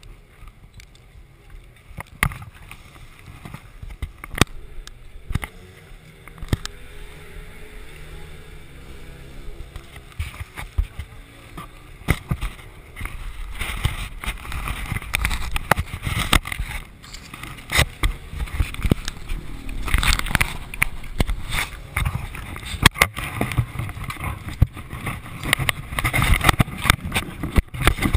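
Muffled motorcycle engine noise and wind rumble picked up by a chest-mounted action camera inside its housing, with scattered knocks and rattles. It grows louder and busier about twelve seconds in.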